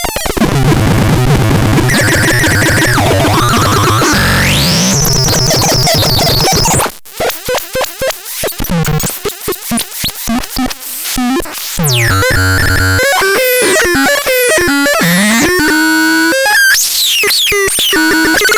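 Absurdon ML6 electronic noise instrument being played: harsh, dense noise with a rising pitch sweep about four seconds in. About seven seconds in it breaks into a choppy, stuttering pattern, then buzzy tones with quick falling sweeps.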